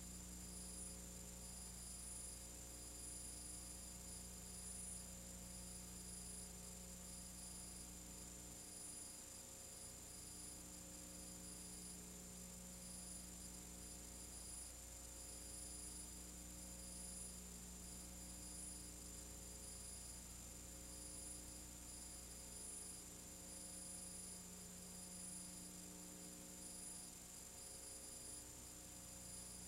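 Near silence: a faint, steady electrical mains hum with a thin high whine and hiss, and no other sound.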